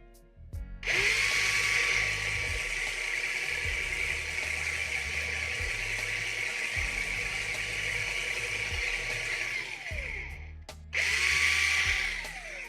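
Small electric drill running while drilling into a die-cast toy car, a steady whine for about nine seconds that slows and falls in pitch as it stops, then a second short run that also winds down.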